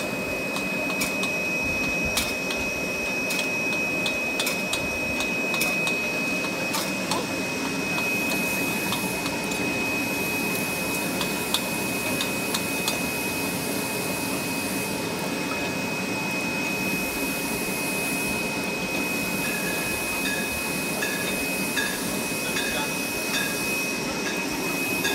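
Wine bottle rinsing, filling and capping monoblock machine running: a steady mechanical whir with a constant high whine, and scattered clicks and clinks as the glass bottles pass through the star wheels. About three-quarters of the way in, a short tone starts repeating at a regular beat.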